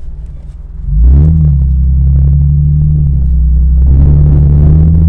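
Four-wheel-drive vehicle's engine driving over sand dunes. It runs lightly for about a second, then revs up and pulls hard and steady under load, easing briefly and revving up again near the end.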